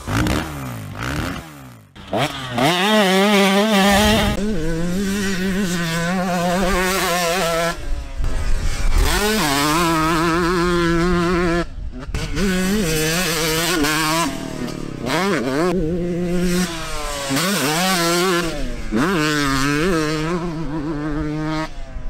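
2001 Yamaha YZ125 two-stroke dirt bike engine, ported for 134 cc, ridden hard on a motocross track. The engine revs up high and holds, over and over, and drops away briefly several times between pulls as the rider shifts or rolls off the throttle.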